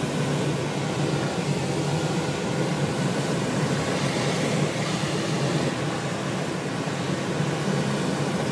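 Steady rush of air over a sailplane's canopy during the aerotow climb, with the low, even drone of the tow plane's engine ahead.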